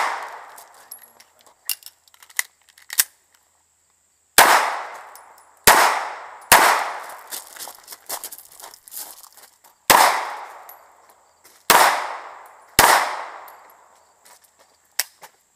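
Six pistol shots spaced over about eight seconds, in two groups of three, each crack followed by a fading echo.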